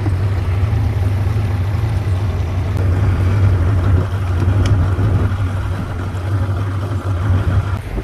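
Yamaha 115 outboard motor on a Carolina Skiff running steadily, a low drone under some water and wind noise.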